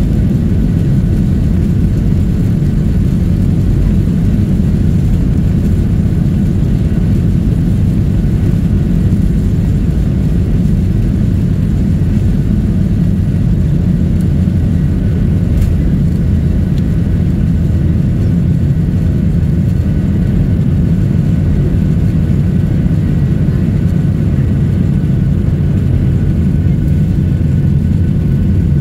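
Boeing 737-800's CFM56 turbofan engines at takeoff power, heard inside the cabin during the takeoff roll and climb-out: a loud, steady low rumble with a faint high whine over it.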